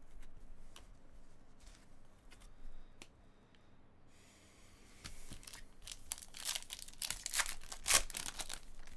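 A trading-card pack's wrapper being torn open and crinkled. Light clicks of card handling come first; the tearing and crinkling start about four seconds in and grow louder toward the end.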